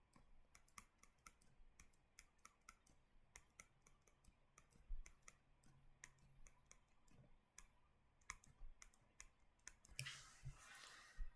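Near silence with faint, irregular small clicks, sometimes several a second, and a soft hiss near the end.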